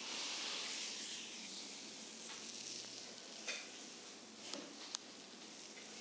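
Hands pressing and sliding over bare skin in a deep tissue massage of the lower back, heard close up through a microphone strapped to the masseur's wrist: a soft rustling hiss, loudest in the first second or so, with a few faint clicks later.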